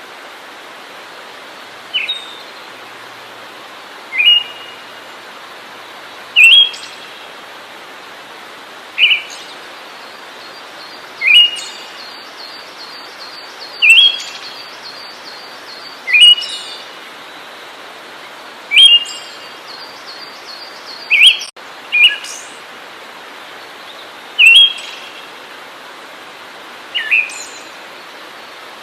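A songbird giving a short, sharp call about every two and a half seconds, about a dozen in all, over a steady hiss.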